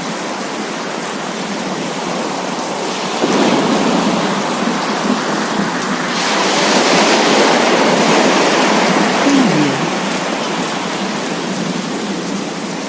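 Rain falling with sea waves washing on the shore, a steady rushing hiss that swells about three seconds in, brightens about six seconds in and eases off near ten seconds.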